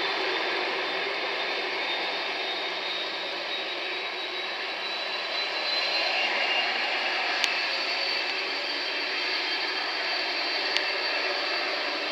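Twin GEnx-1B turbofans of a Boeing 787-10 at low thrust while taxiing, a steady jet rush with a high fan whine that rises slightly about halfway through. Two brief clicks come later on.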